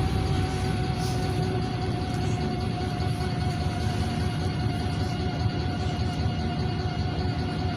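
Inside a moving NefAZ 5299 city bus: its Cummins ISBe diesel and drivetrain give a steady low rumble with a constant high whine over it.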